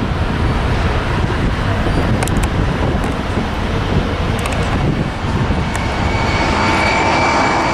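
Distant twin-engine widebody airliner taking off, its jet engines at takeoff thrust giving a steady broad rumble. A thin whine rises out of it near the end.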